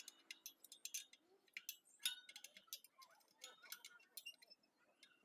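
Irregular light metallic clicks and clinks, several a second, some with a short ring: steel wheel spokes and a spoke wrench being handled while a motorcycle wheel is re-spoked.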